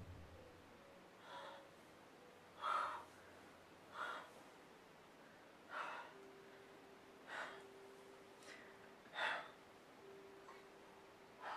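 A man's heavy, distressed breathing: seven sharp breaths, about one every second and a half.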